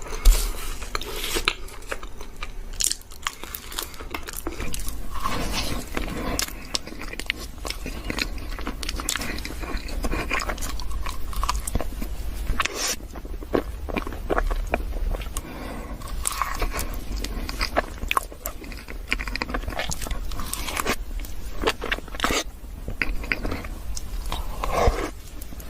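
Close-miked eating of chocolate caramel profiteroles: repeated bites with crackly crunches of the chocolate coating, then soft, wet chewing, going on without pause.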